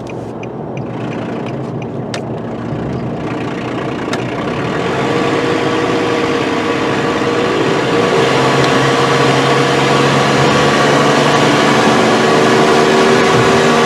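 2009 Nissan Frontier pickup engine and road noise picking up speed, growing steadily louder for about eight seconds and then holding steady. The oxygen sensor is out of its port, a test for a clogged catalytic converter.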